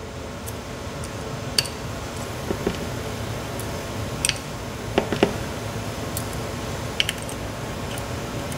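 Small metal clicks and taps at irregular moments, a pair of louder ones about five seconds in, as the bottom pins and ball bearings are taken out of a 5-pin Corbin mortise lock cylinder. A low steady hum runs underneath.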